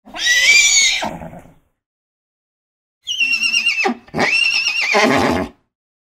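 Horse whinnying twice: a short neigh at the start that trails off lower, then after a silent gap a longer whinny of about two and a half seconds with a wavering pitch that dips briefly about a second in.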